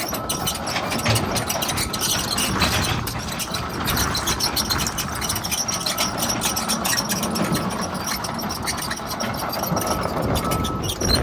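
Diesel engine of a John Deere 210G LC hydraulic excavator running under load while the machine works, with irregular clinks and clatter throughout.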